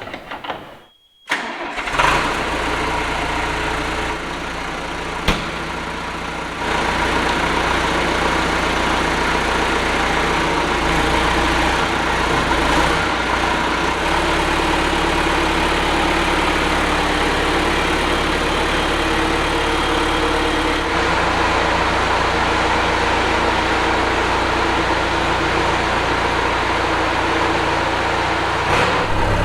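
Backhoe's diesel engine starting about a second and a half in, then running steadily, its speed stepping up at about six and a half seconds.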